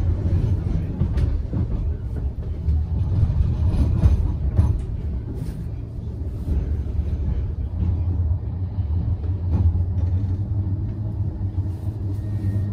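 Blackpool tram running, a steady low rumble with a few faint knocks.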